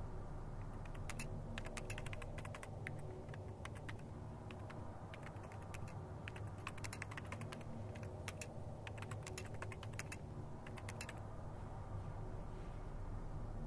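Typing on a laptop keyboard: irregular bursts of quick key clicks with short pauses between them, stopping near the end.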